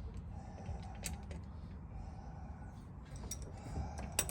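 A few sharp metallic clicks and taps from hand tools tightening the fittings of a marine diesel fuel filter mount, the loudest pair near the end, over a steady low hum.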